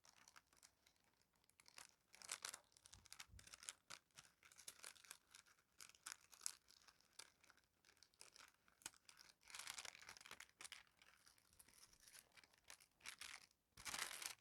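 Wrapping paper being torn and crinkled off a parcel by hand: a run of short rips and rustles, loudest near the end.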